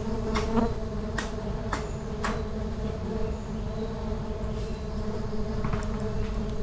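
A mass of honey bees buzzing steadily around their opened nest, a constant hum, with several light clicks from the comb being handled about half a second to two seconds in and again near the end.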